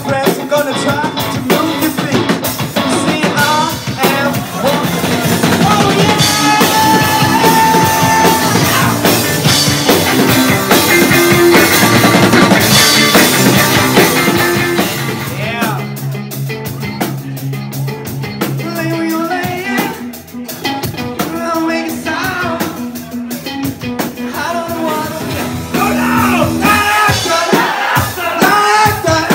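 Live rock band playing: a drum kit, electric guitars and a sung lead vocal, with a quieter stretch a little past the middle before the full band comes back in.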